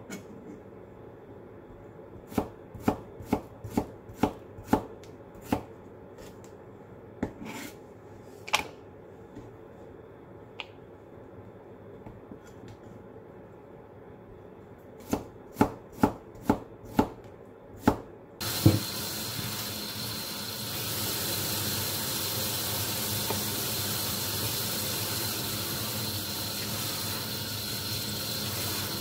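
Kitchen knife slicing a cucumber on a plastic cutting board: a run of quick strokes, a few single strokes, then another quick run. About two thirds through, a tap is turned on and water runs steadily into the sink.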